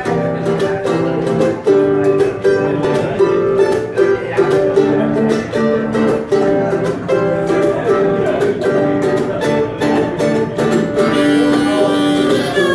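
Live acoustic instrumental played on plucked string instruments: a box-bodied, cigar-box-style guitar picked together with a second small string instrument, in a steady run of short picked notes.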